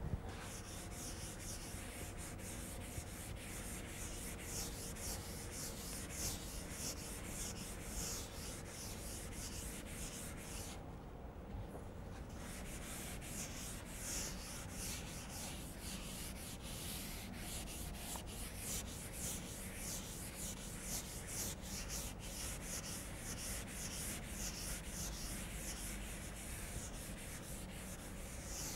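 Chalkboard being wiped with a duster: repeated rubbing strokes across the board, with a short pause a little before halfway.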